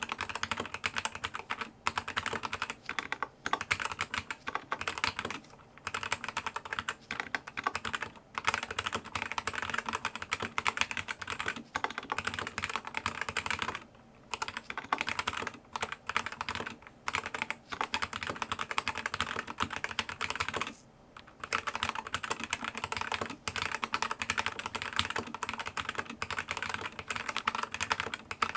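Fast typing on a Zi You Lang K68 mechanical keyboard with red linear switches: a dense stream of key clacks, broken by a few brief pauses.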